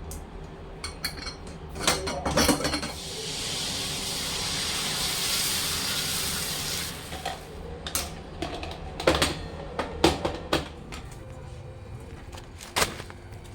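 Kitchen utensils and pots clinking and knocking, with a steady hiss lasting about four seconds from about three seconds in.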